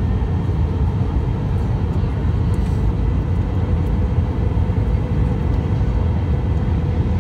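Steady cabin noise inside an Airbus A319 airliner in flight: an even, low rumble of the jet engines and airflow over the fuselage, with faint steady tones above it.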